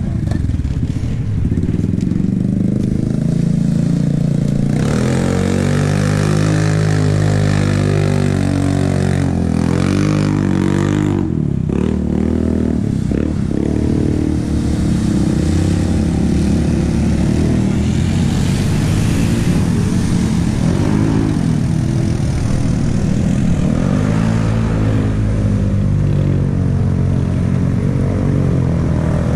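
ATV engines running, revving up and down in several stretches as the quads are ridden through mud, over a steady engine note that runs throughout.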